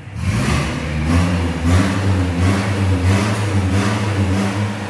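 Small single-cylinder stationary diesel engine starting up and running. Its pitch settles within the first second, then it runs steadily with a regular swelling beat about one and a half times a second.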